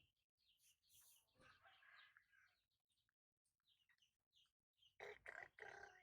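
Faint, quick high-pitched animal chirps repeating, with a louder, fuller stretch of calling about five seconds in.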